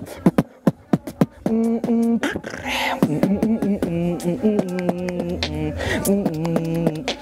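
A man beatboxing: sharp mouth-made clicks and kick-and-snare hits, then from about a second and a half in a wordless pitched vocal line carried over the beat at the same time.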